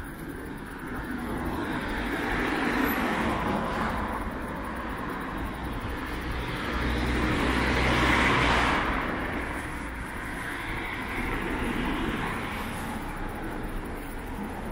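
Road traffic: cars passing one after another on the street alongside, the rush of tyres and engines swelling and fading three times, loudest about halfway through.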